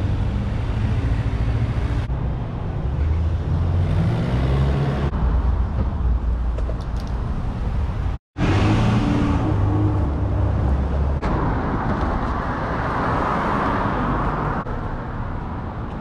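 Street traffic noise: cars and vans passing on a city street, with a heavy low rumble, heard in short clips that cut abruptly, with a brief dropout about eight seconds in.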